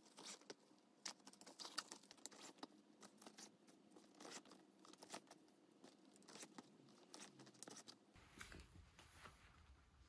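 Faint, scattered ticks and rustles of a bootlace being pulled through the metal eyelets of a leather Dr. Martens 1B99 14-eyelet boot as it is laced by hand.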